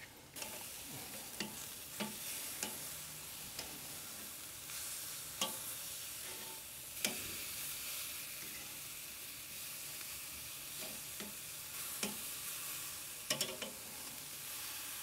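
Marinated pork neck pieces sizzling on the hot grate of a Weber charcoal kettle grill. Sharp clicks of metal tongs against the meat and grate come every second or few as the pieces are turned over.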